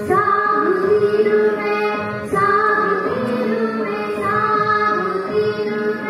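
A voice singing a devotional prayer song in Indian classical style, its melody gliding and bending between notes over a steady drone.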